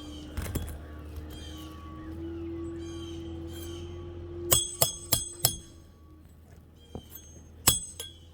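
Roofer's hatchet driving roofing nails into a replacement laminate asphalt shingle: a quick run of four or five sharp, ringing metal strikes about halfway through, then one more near the end.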